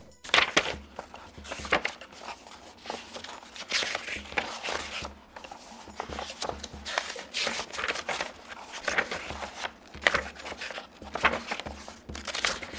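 Paper pages being turned and rustled, a continuing run of swishes and sharper flicks about once a second, the sharpest one just after the start.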